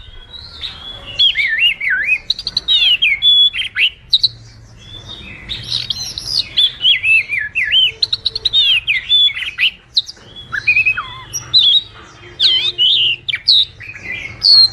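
Oriental magpie-robin (kacer) singing a long, varied song of quick whistled notes that slide up and down, with short pauses about four and ten seconds in.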